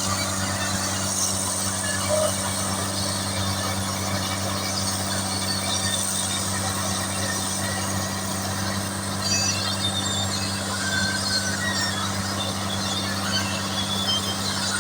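Engine of heavy road-construction machinery running steadily at a constant pitch, with a few short high squeaks from about two-thirds of the way in.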